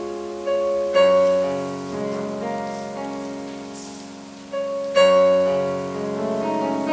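Slow solo piano music: sustained chords struck a few seconds apart, each left to ring and fade before the next.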